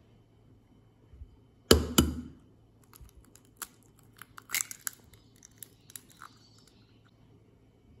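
A raw egg knocked twice sharply to crack its shell, followed by light, scattered clicking and crackling as the shell is pulled open and the egg drops into the bowl.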